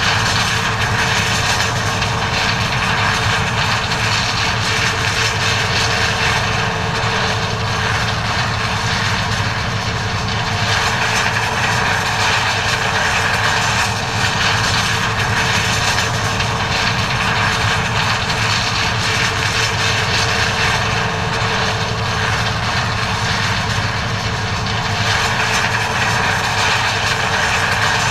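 John Deere 9400 combine harvester running steadily while harvesting corn: a constant engine and machinery drone with a steady whine over it.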